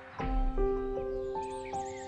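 Calm background music of long held chords that change about a fifth of a second in, with a deep low note, and short high bird chirps over it near the end.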